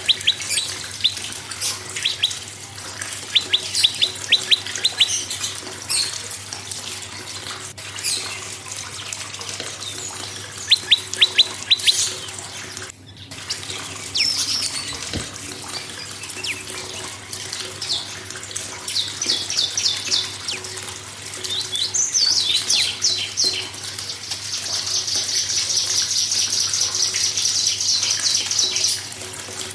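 Prenjak singing: short bursts of rapid, sharp chirps repeated in series, then a fast, continuous high trill held for several seconds near the end.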